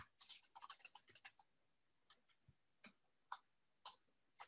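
Faint keystrokes on a computer keyboard: a quick run of about a dozen keys in the first second and a half, then single keys roughly every half second.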